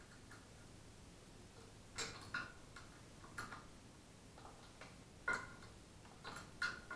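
Light, irregular metal clicks and taps from Predator 224cc engine parts being handled during teardown, starting about two seconds in, over a faint low hum.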